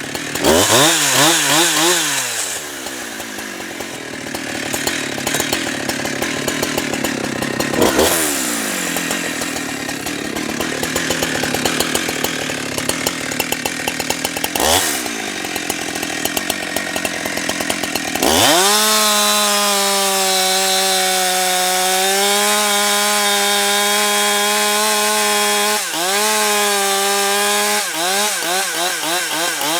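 Husqvarna 365 two-stroke chainsaw cutting through logs, the engine pitch sagging as the chain bites into the wood. About two-thirds of the way in it comes out of the cut and runs at a steady high scream at full throttle, then dips briefly a few times near the end.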